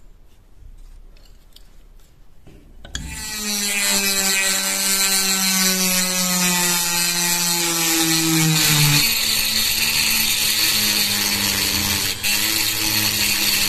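A handheld rotary tool with a small ball burr starts up about three seconds in and runs against the steel pivot rivet of a rusty folding knife, grinding the rivet head away to take the knife apart. Its whine sinks slightly in pitch over several seconds, then holds steady. Before it starts, only faint clicks of handling.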